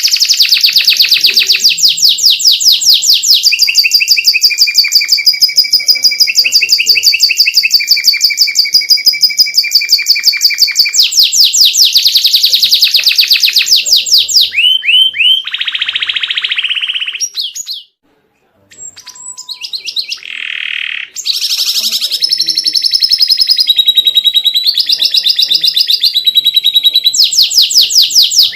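Domestic canary singing a long song of rapid trills and rolls, runs of quickly repeated notes that switch to a new phrase every few seconds. It breaks off briefly a little past the middle, then starts again.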